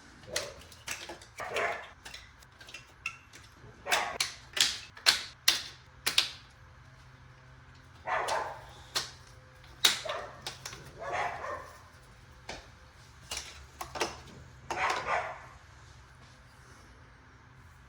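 A dog barking in repeated short bursts, with a few sharp clicks among them.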